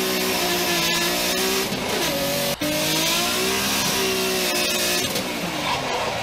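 Simulated car engine sound from an RC engine-sound module (Sense Hobby) on a 1/10 Tamiya TT-02 drift car, revving up and falling back again and again with the throttle. The sound drops out briefly about two and a half seconds in.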